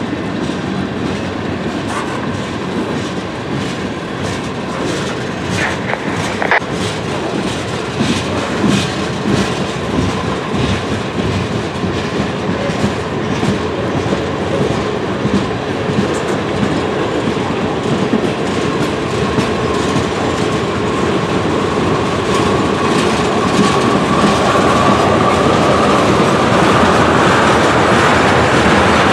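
Tank cars of a CSX manifest freight train rolling past at close range: steel wheels clattering over the rail joints in an irregular clickety-clack, with a thin steady whine that grows stronger and louder through the second half.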